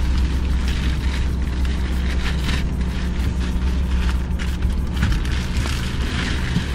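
A steady low mechanical hum, in the manner of an idling engine, under rustling and bumping as a person clambers into a car's driver's seat over cardboard and plastic protective covers.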